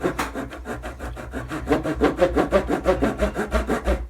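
Fine-toothed razor saw cutting through a thin wooden capping strip, in quick, even back-and-forth strokes, several a second.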